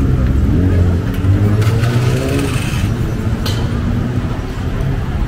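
Street traffic: the engines of cars and motorbikes running close by as they pass, a steady low hum with some engine pitch shifting in the first few seconds.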